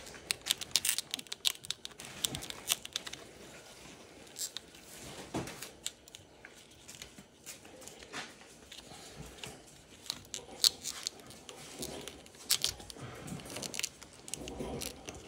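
Hands working heat shrink tubing over a handlebar thumb warmer: scattered clicks, rustles and plastic crinkling, with a few sharper snaps about ten and twelve seconds in.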